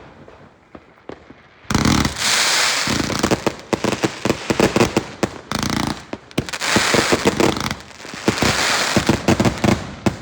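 A chain of firecrackers going off in rapid, dense strings of bangs with a crackling hiss. There are two long volleys, one starting about two seconds in and another about six seconds in, with a few scattered pops before them.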